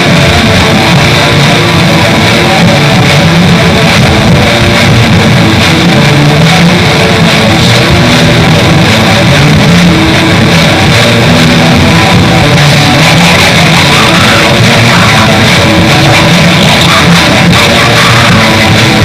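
Raw black metal music: heavily distorted electric guitars in a dense, loud, unbroken wall of sound.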